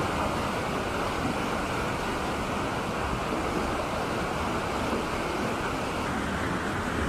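Swollen, muddy mountain river rushing loudly over rocks and a small cascade, a steady, unbroken wash of water noise.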